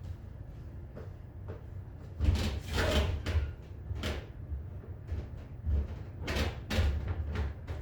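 A series of irregular knocks and thumps, like a door or cupboard being handled, with the loudest cluster a little over two seconds in and two more sharp knocks near the end.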